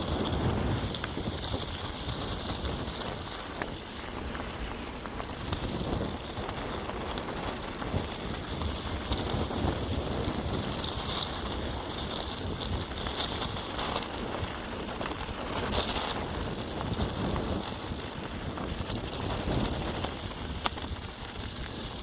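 Mountain bike rolling along a dirt trail: tyre noise on the dirt, with a steady rush of wind on the microphone.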